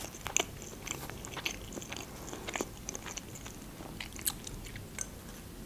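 Close-miked chewing of a mouthful of baked calzone: soft wet mouth smacks and small clicks, a few at a time, with no speech.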